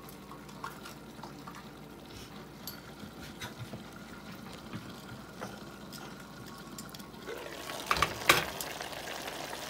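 Stew simmering in a covered pot: a steady low hiss with small scattered pops and crackles. About eight seconds in, two sharp knocks as the glass lid is lifted off the pot.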